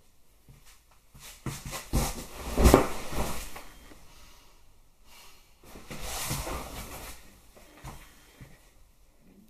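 Rustling and bumping of someone moving right beside the microphone, with two loud stretches of clothing and handling noise and a few knocks, the loudest about two and a half seconds in.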